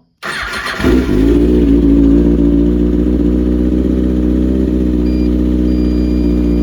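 Kawasaki ZX6R's inline-four engine cranking on the electric starter for about half a second, then catching and settling into a steady idle.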